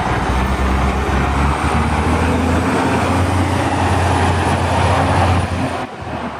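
MCI intercity coach's diesel engine pulling away and accelerating: a steady low engine note with a faint high whine that rises over the first couple of seconds and then holds. The sound drops off suddenly shortly before the end.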